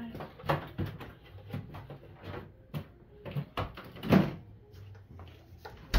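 Knocks and clatters of things being handled in a kitchen, the loudest a single thump about four seconds in.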